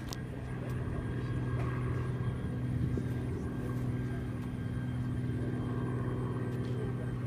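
Boeing B-17G Flying Fortress's four Wright R-1820 Cyclone radial engines running with a steady drone as the bomber rolls along the field.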